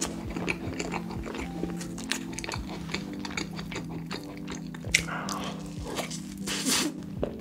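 Background music with steady sustained notes over close-miked eating sounds: a person biting and chewing cake, with many small clicks and smacks and a sharp click about five seconds in.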